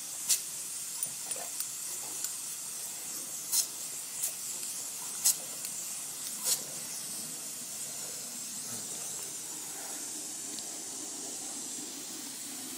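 Garden hose spray nozzle hissing steadily, with a string of short sharp splashes in the first seven seconds as a Great Dane puppy snaps at the jet of water.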